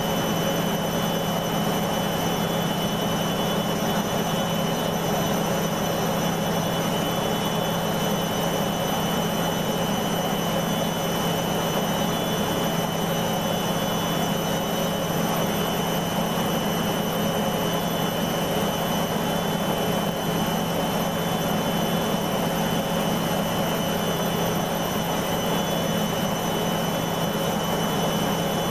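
Beko washing machine spinning at steady speed, a continuous motor and drum hum with a high whine over it, while the machine is in a suds lock from excess detergent foam.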